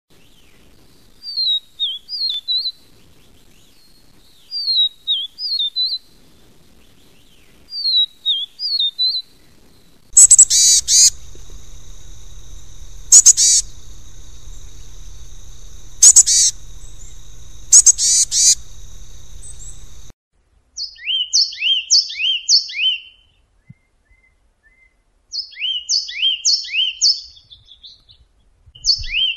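Three bird recordings in turn. First, a Vivid Niltava sings three short phrases of thin, falling whistles. Then a Chestnut-bellied Tit gives loud, sharp calls over a steady high tone and a hiss. Last, a Yellow Tit sings quick phrases of repeated two-part notes.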